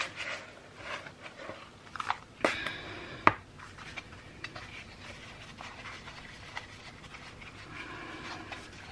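Damp bath bomb mixture of bicarbonate of soda and citric acid being scooped and pressed by hand into a plastic mould: soft crunching and scraping of powder against plastic, with a sharp click about three seconds in.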